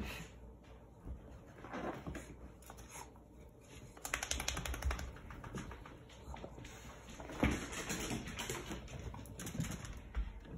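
Small dog rubbing and rolling on a carpet to dry itself after a bath, with a fast run of clicks for about a second some four seconds in.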